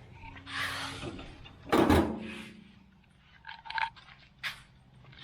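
Metal parts of a Weber Spirit gas grill scraping and clanking as they are handled during assembly, with one loud knock about two seconds in and a few light clicks after.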